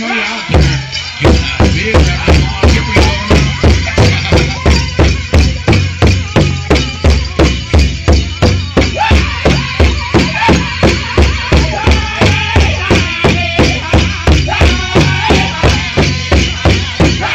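Powwow drum song: a large drum struck in a steady beat of about two and a half strokes a second, coming in about a second in, with high singing and jingling over it.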